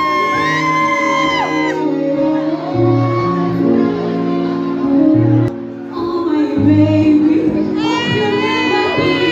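Music with a high-voiced singer over a moving bass line; the sung lines are strongest at the start and again near the end, and the music dips briefly a little past halfway.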